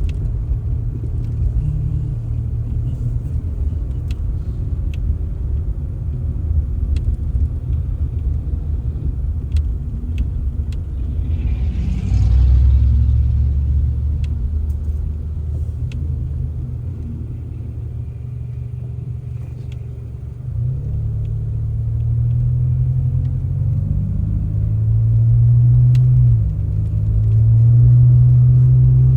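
A vehicle engine running with a steady low rumble. Its pitch steps up and down several times in the second half, and there is a short hiss about twelve seconds in.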